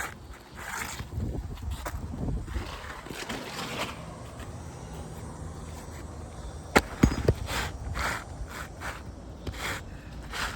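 Scraping and rustling on 3-tab asphalt shingles, with two sharp knocks close together about seven seconds in: a hammer driving nails back in.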